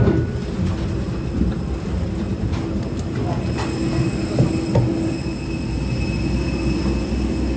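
Steady mechanical drone with a thin high whine, the noise of aircraft on an airport apron. A few short clanks of footsteps on a metal boarding stair come about three to five seconds in.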